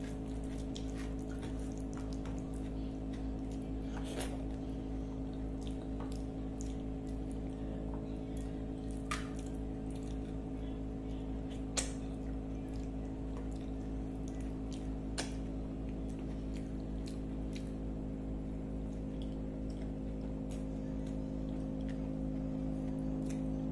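Close-miked eating by hand: fingers squishing and mixing rice and curry on a plate, with chewing and scattered sharp clicks. A steady low hum runs underneath.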